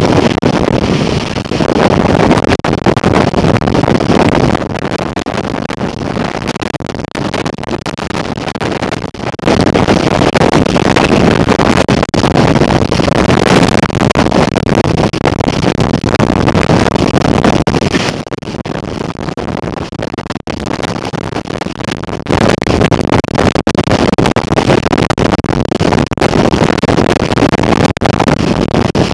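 Strong storm wind buffeting the microphone in gusts, a loud rushing roar that surges and eases, with a calmer spell about two-thirds of the way through before it picks up again.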